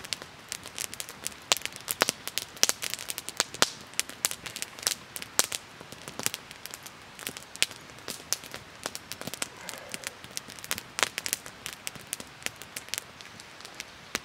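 Wood campfire crackling and popping: irregular sharp snaps, several a second, over a low steady hiss of burning.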